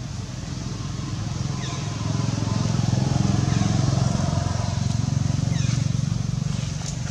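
A motorcycle engine running nearby, a low, rapidly pulsing drone that grows louder over the first few seconds and eases off again toward the end.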